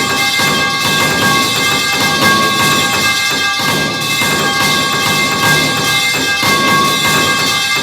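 The 'metal pipe falling' clang sound effect stacked and repeated in quick overlapping succession, a continuous wall of metallic ringing with no pause, struck again every fraction of a second.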